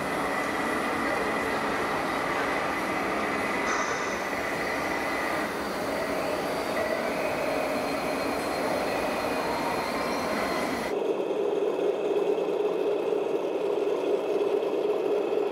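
Small electric motors and gearing whining over a dense mechanical running noise, with a brief rising whine near the middle. About eleven seconds in, the sound switches abruptly to a steadier hum.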